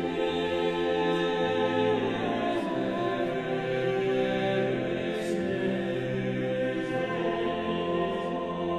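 Slow background music of long held chords, with choir-like voices sustaining the notes.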